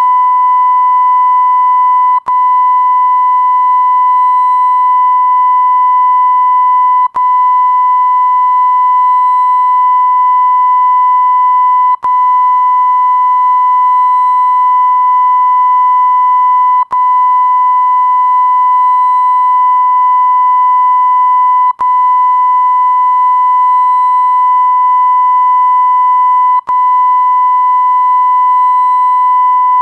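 A continuous electronic beep tone at about 1 kHz, the censor-bleep sound effect, held steady with a brief break roughly every five seconds where the loop restarts.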